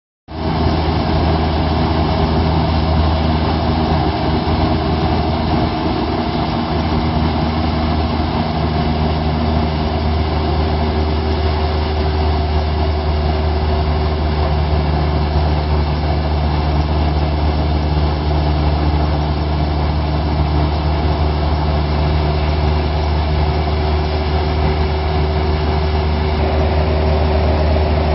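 Airplane in flight: a steady, even engine drone with a strong low hum.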